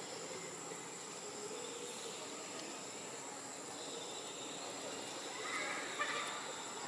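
Insects droning steadily in one constant high, thin tone over outdoor ambience, with a short louder sound about six seconds in.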